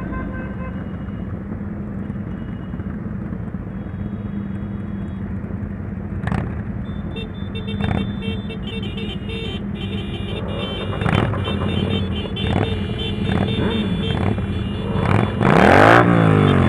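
Motorcycle engines running in dense, slow traffic, with several short blips of throttle. Near the end, a bike revs hard, its pitch rising and then falling.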